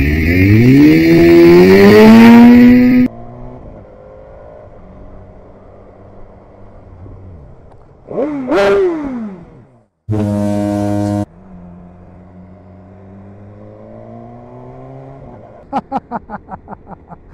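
Motorcycle engines across several clips. One accelerates hard with its note rising, then cuts off. Another idles and revs briefly, a horn sounds for about a second, and the engine note rises again before a quick run of short pulses near the end.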